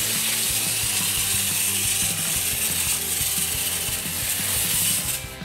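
Wind-up Capsule Plarail Thomas toy train running on plastic track with a wagon coupled behind it, its clockwork gears whirring steadily, then cutting off suddenly about five seconds in. Quiet background music plays underneath.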